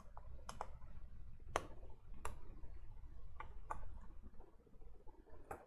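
Light, irregular clicks and taps of a PC power supply's circuit board and sheet-metal housing being handled as the board is worked out of the case, about half a dozen in all.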